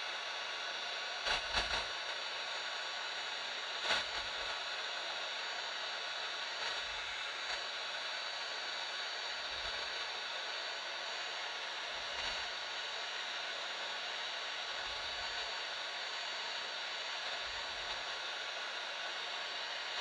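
Heat gun running steadily, blowing hot air in an even rushing hiss, with a few soft low bumps.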